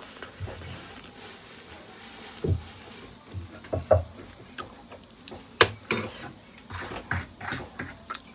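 Close-up eating sounds: chewing and mouth smacks mixed with irregular small clicks and taps, a few louder ones in the second half.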